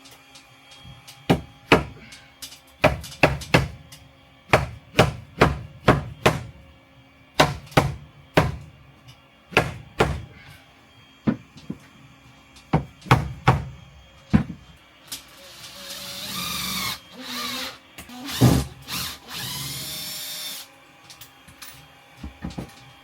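A hammer striking wood in a run of irregular, sharp blows, roughly one or two a second, as wooden ceiling panels are fixed in place. It is followed by a power drill running twice for a couple of seconds each time, with its pitch rising as it spins up and a single knock between the two runs.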